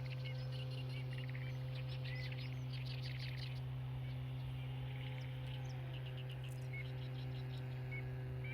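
Small birds chirping and twittering in quick repeated trills, over a steady low machine hum.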